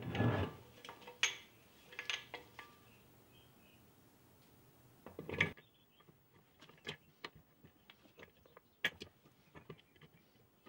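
Scattered light metallic clinks and knocks of Land Rover Series 3 gearbox parts being handled: a gear and the bell housing being fitted onto the gearbox case. The loudest knock comes about five seconds in.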